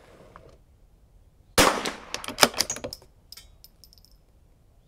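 A Vudoo V-22 .22LR bolt-action rifle firing one sharp shot about a second and a half in, followed closely by a quick cluster of sharp clicks and clacks, with a few faint metallic ticks near the end.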